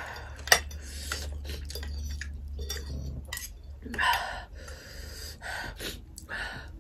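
Metal spoons and forks clinking and scraping against ceramic bowls and a soup boat as soup is ladled and noodles are forked. There are scattered sharp clinks, with a few soft eating sounds.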